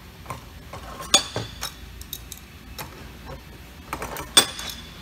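Light metal clicks and clinks as the threaded poppet cap is worked off the end of an MWD pulser's lower end by hand. Two sharper, ringing clinks stand out, one about a second in and one near the end.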